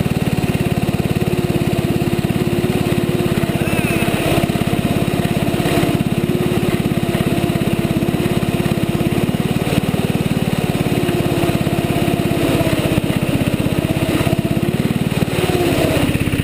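Small engine of a children's snowmobile running steadily at low speed, heard close up from the hood, its pitch dipping slightly near the end as the sled slows.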